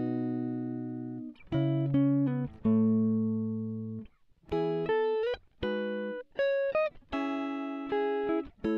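Background music: a plucked guitar playing chords and short melodic phrases, each note starting sharply and ringing out, with a few notes sliding up in pitch.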